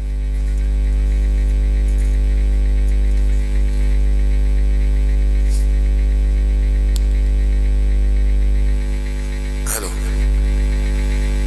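Loud, steady electrical mains hum with a stack of evenly spaced overtones, running without change. A short vocal sound breaks in about ten seconds in.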